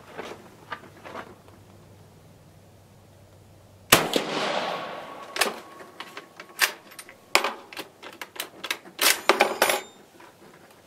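One shot from a Carcano M38 short rifle in 6.5mm firing a cast-bullet load: a sharp crack with echo about four seconds in. It is followed by a run of metallic clicks and clacks as the turn-bolt is worked to eject the case and chamber the next round.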